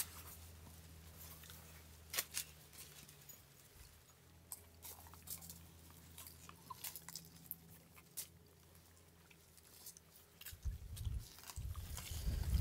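Quiet eating sounds: small clicks and crinkles as people pick grilled fish apart with their fingers and chew, over a faint steady low hum. Louder low rumbling thumps come in near the end.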